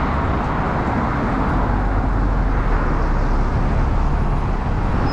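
City bus pulling in close alongside and coming to a stop, over steady street traffic noise with a low rumble.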